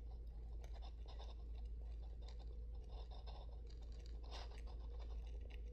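Quiet room tone: a steady low hum with faint, scattered scratching and clicking noises.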